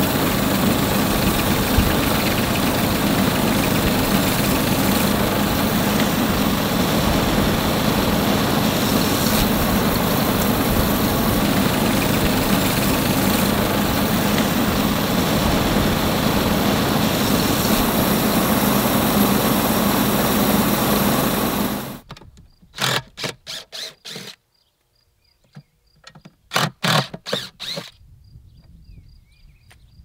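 Small engine driving a homemade bandsaw mill as the blade cuts through a log: a steady, loud drone that stops abruptly about 22 seconds in. A few short knocks and clatters of wood being handled follow.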